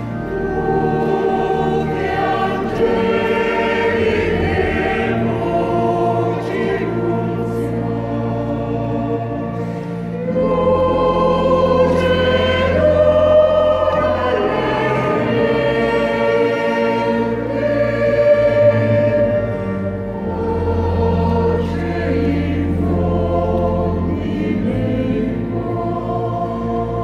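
Mixed church choir singing a Christmas hymn to organ accompaniment, with held organ bass notes under the voices; the music grows louder about ten seconds in.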